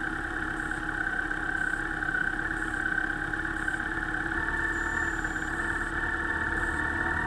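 Motorcycle engines idling steadily.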